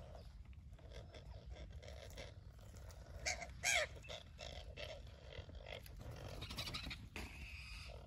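Dark eagle giving harsh calls. The loudest is a short screech that rises and falls in pitch about halfway through, with fainter hoarse calls a few seconds later, over a low steady rumble.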